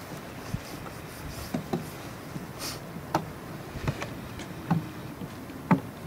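Outdoor ambience: a steady faint rush with about half a dozen short, irregular clicks or taps, the loudest near the end.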